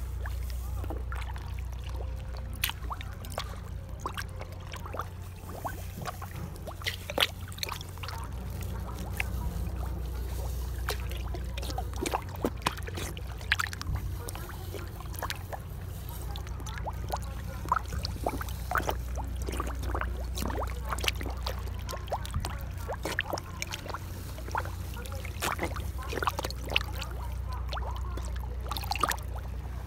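A crowd of carp gulping and slurping at the water surface with gaping mouths: a dense, irregular run of wet smacks, sucks and small splashes, over a steady low rumble.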